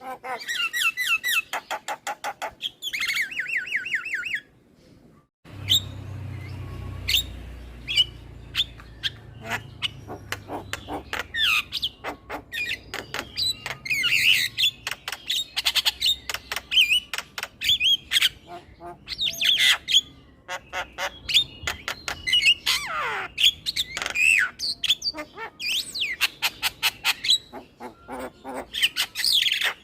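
Male Javan myna chattering: a stream of sharp clicks, harsh squawks and quick whistled slides up and down, with a fast run of repeated notes near the start. It breaks off briefly about five seconds in. A low hum sits under the calls for several seconds after the break.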